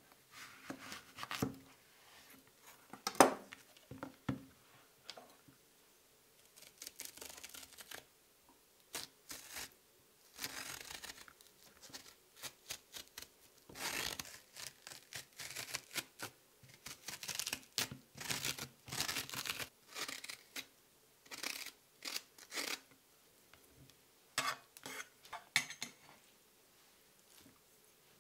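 A metal spoon scraping the soft flesh out of halved zucchini on a wooden cutting board, in many short, irregular scraping strokes, with one sharp knock about three seconds in.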